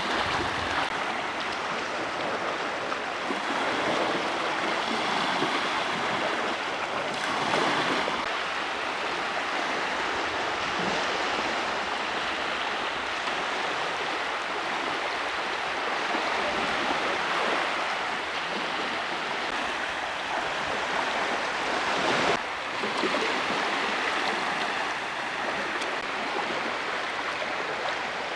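Steady rushing of water, an even wash of noise with brief louder surges about seven seconds in and again about twenty-two seconds in.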